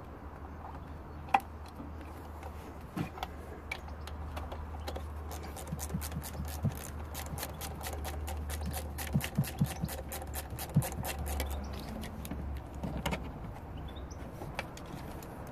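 A steady low rumble of roadworks machinery that dies away near the end. Over it come light clicks and small knocks from hands working parts in the engine bay, with a quick run of rapid ticking through the middle.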